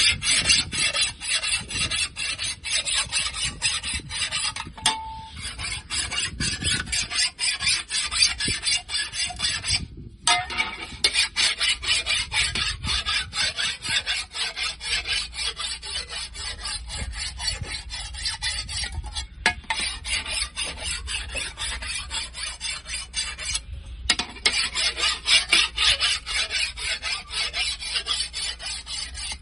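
Rapid, rhythmic hand scraping on iron, stroke after stroke, as the repaired part is filed or brushed clean, with a few short breaks.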